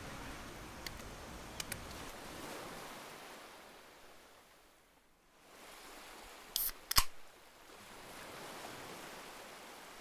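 Steady soft rushing outdoor ambience that fades almost away for a moment near the middle, with a few sharp clicks; the loudest, a pair of clicks, come about seven seconds in.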